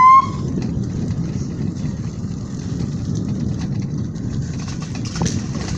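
The end of a police-style electronic siren's rising wail cuts off just after the start. Then a steady low rumble follows, wind buffeting the microphone as the silent electric bicycle rides along, with a short knock about five seconds in.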